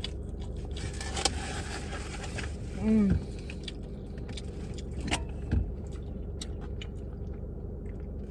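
A person eating, with scattered small clicks and one short hummed 'mm' that falls in pitch about three seconds in, over a steady low rumble.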